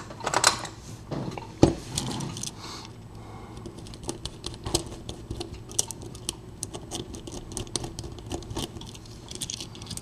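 Small metallic clicks, taps and scrapes of a pin-tumbler deadbolt cylinder being taken apart by hand, a plug follower pressed in to push the plug out, with a sharper knock about one and a half seconds in.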